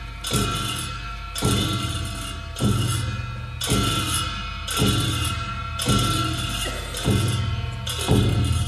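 Tibetan monastic ritual dance music: a large drum and cymbals struck together at a slow even beat, about one stroke a second, each stroke ringing on until the next.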